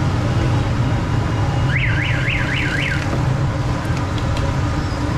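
Steady street din with a low traffic rumble and the hiss of egg malpura deep-frying in a large karahi of oil. About two seconds in, an electronic siren warbles up and down about five times in just over a second, then stops.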